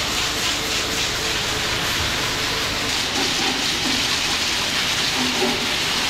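Hose spray nozzle shooting a hard jet of water onto concrete floor and walls: a steady hissing spray with splashing.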